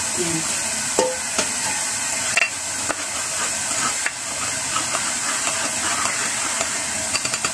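A silicone spatula stirring caldereta mix powder into hot beef broth in a small pot, with a few light knocks against the pot, over a steady sizzling hiss from the stove.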